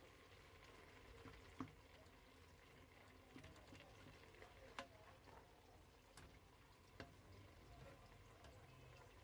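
Faint bubbling of thick saag (cooked greens) simmering in a pot, with a few small clicks.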